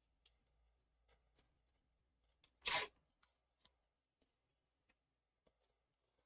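Paper being handled on a table: faint rustles and light taps, with one brief louder rustle of paper a little under three seconds in.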